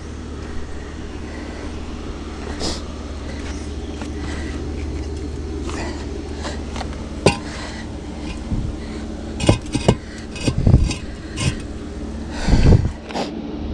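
Hollow concrete blocks being lifted and set down on one another: a run of sharp clacks and gritty scrapes in the second half, over a steady low rumble.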